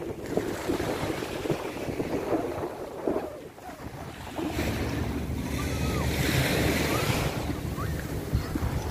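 Seaside beach ambience: wind buffeting the microphone over the wash of small surf. It grows louder and deeper about halfway through, at the water's edge.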